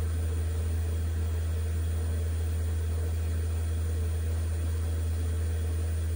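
A steady low hum that does not change, with no separate clicks or other events.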